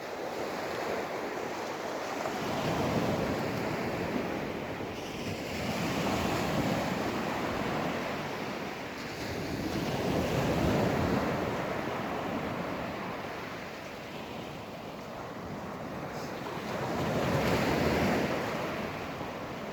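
Ocean surf breaking and washing up a beach, swelling and fading in slow waves several seconds apart, with some wind buffeting the microphone.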